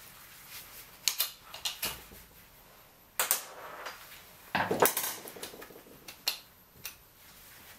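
Small metal parts and a hex key clinking and rattling against a motorcycle engine's cylinder head as the decompression lever cover is unscrewed and lifted off: a series of sharp clicks, with a longer scraping rattle about halfway through.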